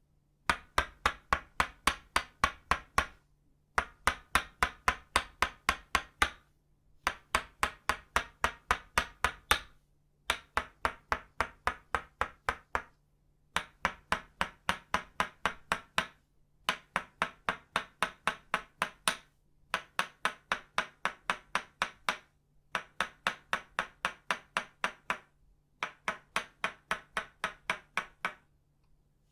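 Tok sen wooden mallet striking a wooden stake, both of itauba wood, in quick rhythmic taps of about four a second. The taps come in nine runs of two to three seconds each, separated by short pauses.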